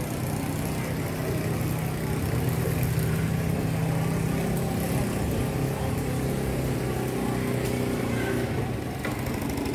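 An engine running at a fairly steady pitch for several seconds, fading near the end.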